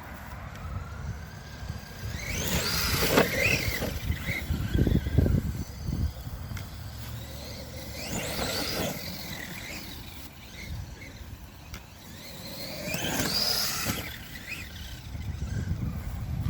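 Redcat Shredder RC monster truck driving over rough ground, its motor whining up and down in three bursts of acceleration, about two, eight and thirteen seconds in.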